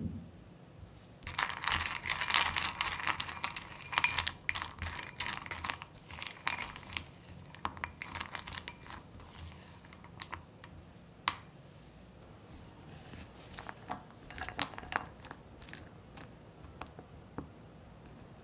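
Metal spoon stirring caramel-coated almonds and macadamia nuts through melted chocolate in a glass bowl. From about a second in, a dense run of nuts clicking and scraping against the glass, thinning out after a few seconds into scattered clicks and taps.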